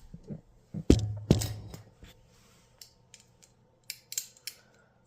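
Small metal parts clicking and knocking as a small-engine carburetor, just taken off, is handled: two sharp knocks about a second in, then a run of lighter clicks near the end.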